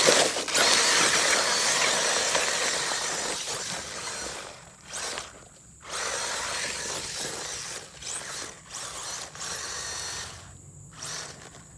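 Traxxas 1/16 Slash RC truck's electric motor whining under throttle. It is loudest at first and fades as the truck drives off, then comes in on-off bursts, dropping out briefly twice.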